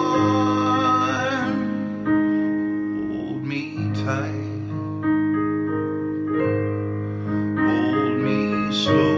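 Live song performance: sustained piano chords with a man singing over them in a few short phrases.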